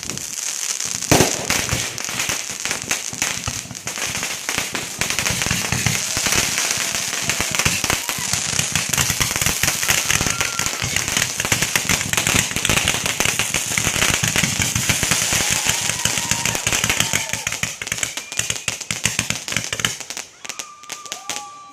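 Fireworks display: a dense, continuous crackling of many small rapid bursts, with one sharp bang about a second in. The crackle thins out and gets quieter near the end.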